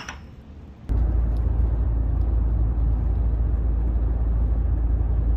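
Steady low rumble of road and engine noise inside a moving car's cabin. It starts suddenly about a second in, just after a single short click.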